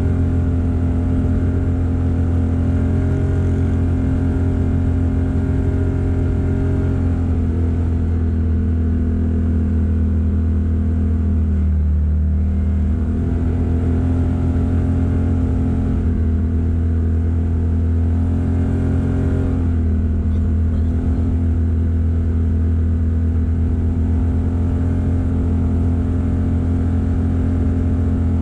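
Vehicle engine running steadily under way on a dirt road, a constant droning hum, with a brief dip in engine pitch near the middle and another about two-thirds of the way through.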